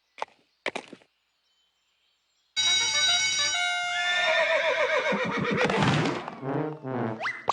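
Horse whinny sound effect: a long neigh with a falling, wavering pitch, starting about two and a half seconds in after a couple of soft clicks and a short pause.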